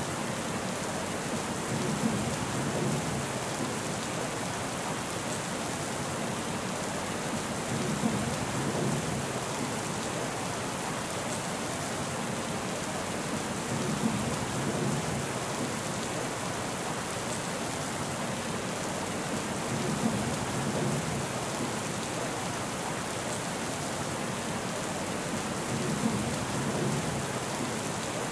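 Steady rain falling, an even hiss. A short low rumble with a sharp start comes back every six seconds, five times.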